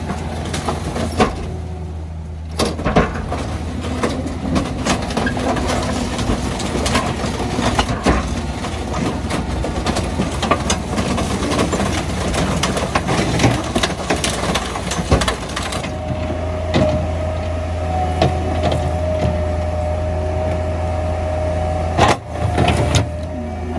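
Rear-loader garbage truck's compactor cycling with the engine running: the hydraulic packer blade crushes bulk waste with much cracking and metal clanking. In the last third the clanking thins out and a steady hydraulic whine sits over the engine, with one loud bang near the end.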